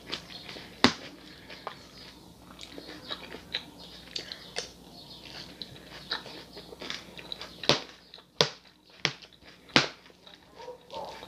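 Close-miked chewing of crisp lettuce salad: wet crunches and mouth clicks, mixed with a fork clicking against the bowl, with several sharper clicks in the last few seconds.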